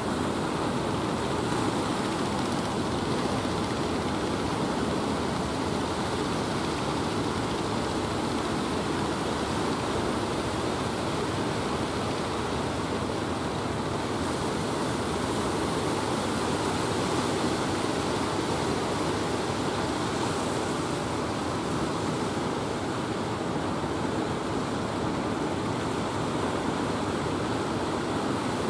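Waves breaking and surf washing steadily.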